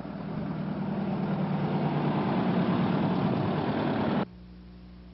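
Volkswagen Kombi van's air-cooled engine running as the van drives along, growing louder over a few seconds. About four seconds in it cuts off abruptly, leaving a quieter steady hum.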